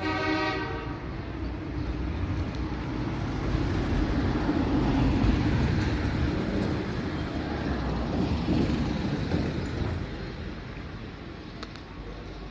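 A horn blasts briefly at the start, then a heavy vehicle passes with a low rumble that swells to its loudest midway and fades near the end.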